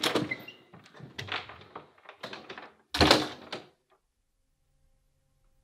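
A flat's front door being unlatched and opened, with a run of clicks and knocks from the lock and handle. Then the door shuts with a heavy thud about three seconds in.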